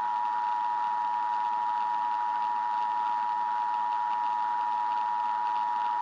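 Emergency Alert System attention signal: a steady two-tone alarm over a hiss of static, announcing that an emergency voice message is about to follow.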